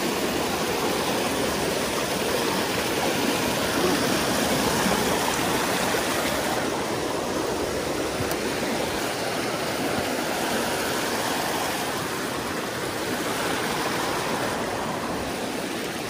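Small mountain stream rushing over rocky cascades, a steady, even rush of white water.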